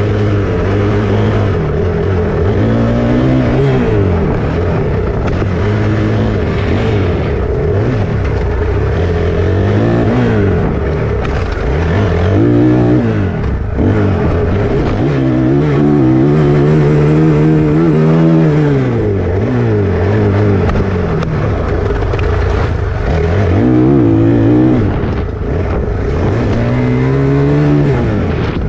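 Motocross dirt bike engine revving hard, its pitch repeatedly climbing and dropping as the rider accelerates, shifts and backs off over the jumps.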